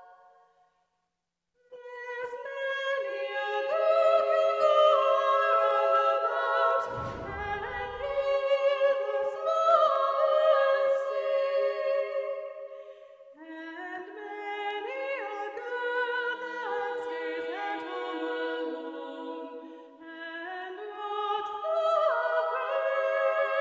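A cappella vocal music: several voices singing long held notes in harmony, starting after a short silence. A brief low rumble comes in about seven seconds in.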